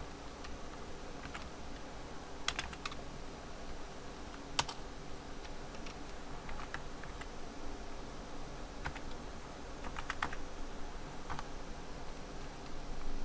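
Computer keyboard keys typed in short, irregular runs of clicks with pauses between them, over a steady low background hum.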